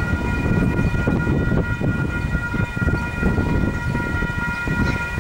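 Wind buffeting the microphone in a low, fluttering rumble, with a steady high whine of several held tones running unbroken over it.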